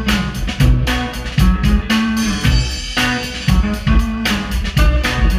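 A live rock band playing: a drum kit keeping a steady beat under a moving bass line, with electric guitar and keyboards.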